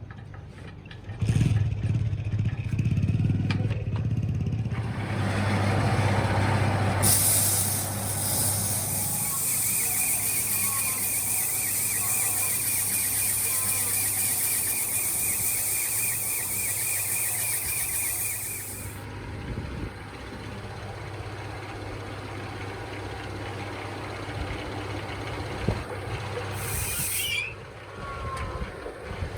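Compressed air hissing in one long blast lasting about twelve seconds, then briefly again near the end, over a steady machine hum.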